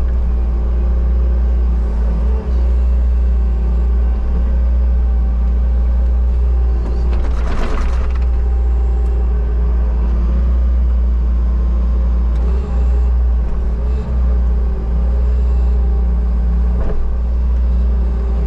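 Bobcat skid steer's diesel engine idling steadily, a deep even hum, with a brief hiss about halfway through.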